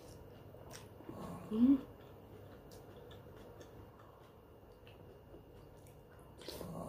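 Eating sounds: a metal spoon scooping soup from a ceramic bowl with a few faint clicks, and mouth sounds of eating. A brief vocal sound comes about a second and a half in, and is the loudest thing heard.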